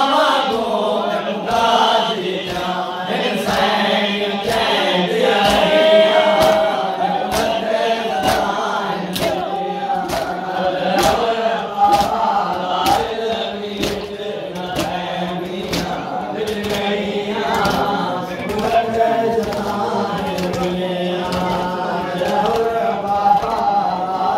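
A crowd of men chanting a noha, the Shia Muharram lament, in unison with the reciter. It is kept in time by sharp rhythmic chest-beating slaps (matam), about two a second.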